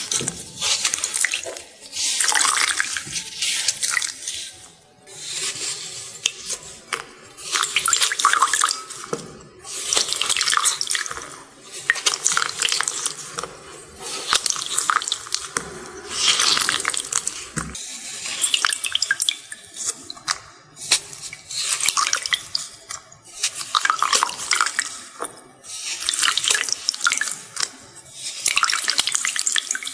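Water-soaked glitter sponges squeezed and kneaded by hand in a glass bowl of water, with wet squelching and crackling as the water is pressed out, in repeated bursts every second or so.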